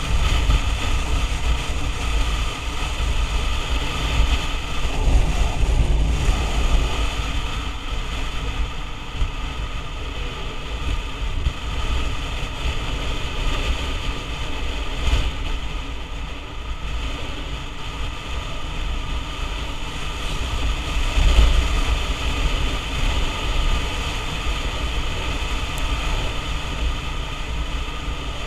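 Wind buffeting the microphone of a camera on a moving motor scooter, with the steady drone of the scooter's engine and the road beneath it. The gusty rumble swells and fades throughout, loudest a little past the middle.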